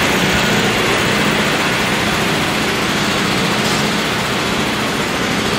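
City street traffic: a steady roar of vehicle engines and road noise, with a low engine hum running under it.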